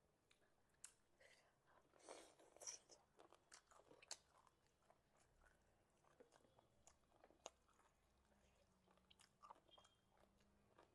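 Faint eating sounds of a person chewing food, with scattered soft clicks and smacks, busiest about two to three seconds in.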